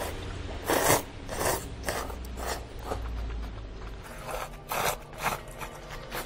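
Eating noises over a bowl of hwangtae kalguksu: a string of about eight short, rasping noises, some of them half a second apart.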